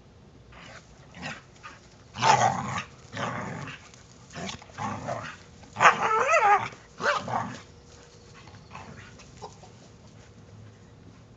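Two Brittany spaniels growling and barking as they play-fight, in a run of short loud bursts through the middle.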